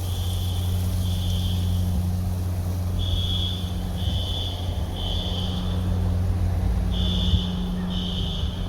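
Fire alarm sounding in a three-beep pattern: high, piercing beeps about half a second long, one a second, with a pause after every third. This is the standard evacuation signal, going off in an apartment building that is flooding. A steady low engine hum runs underneath.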